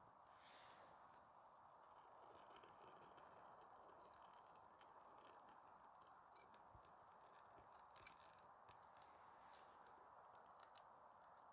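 Very faint, irregular crackling and ticking, as of birch bark and kindling catching fire, over a low steady hiss.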